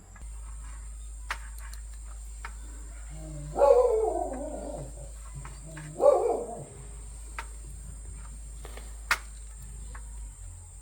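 Two loud animal calls, a longer one a few seconds in and a shorter one about two seconds later, over a steady low hum with a few sharp clicks.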